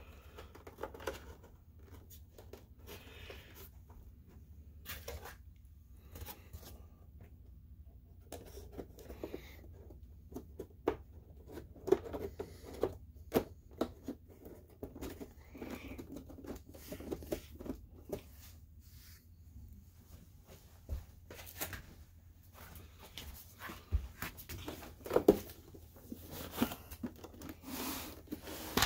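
Hands fitting and handling a Sim2 HT300E projector's plastic housing: scattered clicks, taps and scrapes as the shell panels are pressed together and the unit is turned over, busiest in the second half, over a steady low hum.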